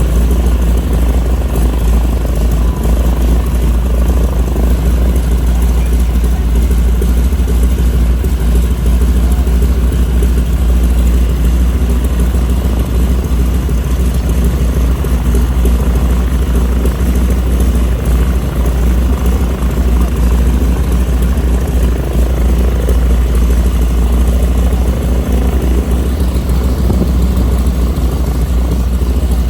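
Vintage propeller trainer's radial engine running steadily at a constant, even pitch, with a deep low drone and no changes in speed.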